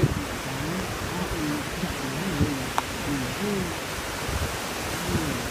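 A steady rushing hiss, with faint men's voices murmuring behind it and a single small click about three seconds in.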